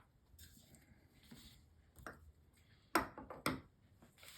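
Faint rustle of a paper towel wiping excess JB Weld epoxy off a part, then two sharp clicks of small hard objects about half a second apart, around three seconds in.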